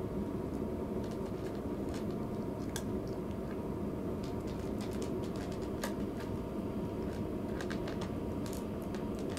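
Cat eating from a plastic food bowl: soft, irregular small clicks of chewing and of food against the bowl, more of them in the second half, over a steady low hum.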